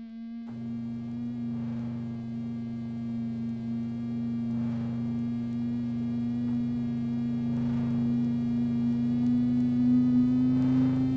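A low, steady droning hum of two held tones, with a faint swell about every three seconds, slowly growing louder.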